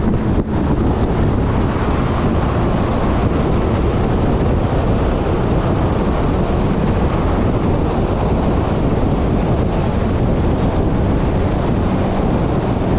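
Steady, loud rumble of wind buffeting the microphone.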